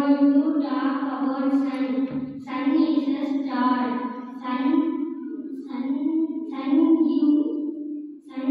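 A young boy singing into a handheld microphone in short held phrases with brief breaks between them.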